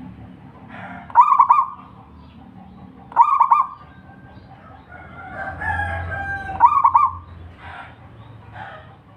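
Zebra dove (perkutut) cooing: three short phrases of rapid stuttering notes, about two to three seconds apart. Between the second and third phrase another bird gives a longer, steadier call.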